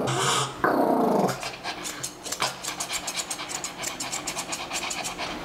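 A Pekingese growls and snarls loudly for about the first second and a half, then a quick run of steel grooming-scissor snips follows as its leg fur is trimmed.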